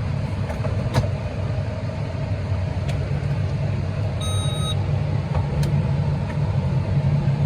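Heavy farm machinery running steadily at field work with a low, even rumble. A short, high electronic beep sounds a little after four seconds in, and there are a few light clicks.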